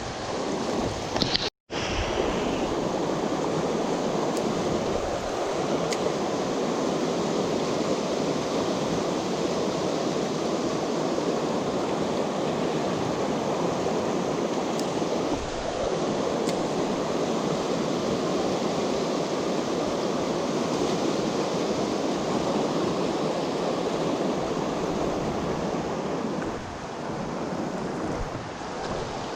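Fast-flowing river current rushing steadily, the river running high after days of rain. The sound cuts out briefly to silence about a second and a half in.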